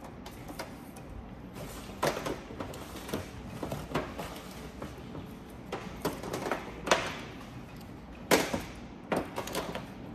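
Hands handling a sand-painting card, plastic sand cups and a plastic tool on a tabletop: scattered light taps and clicks with a few short scraping swishes, two louder ones in the second half.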